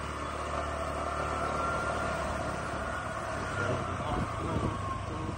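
Motorcycle engine running with road and wind noise, heard from on the moving bike; a few low thumps about four seconds in.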